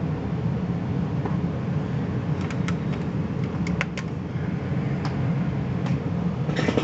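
Steady low hum, like a fan or motor running, with a few light clicks and taps in the middle and near the end.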